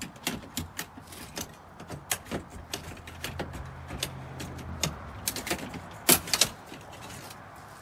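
Metal keyblade of a Seattle Rapid Access Tool (SEARAT) clicking and scraping irregularly against a commercial door's latch and strike plate as the lock is jimmied open, with a louder clatter of clicks a little after six seconds in.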